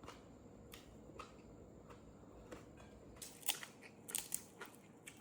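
Faint crunching and clicking of someone eating dried fish, with a run of sharper crisp crunches about three to four and a half seconds in.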